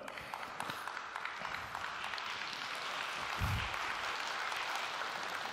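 Audience applauding, fairly steady throughout, with one brief low thump a little past the middle.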